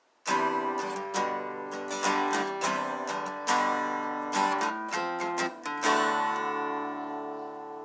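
Background music: an acoustic guitar playing picked notes and strummed chords, starting a moment in after a brief silence.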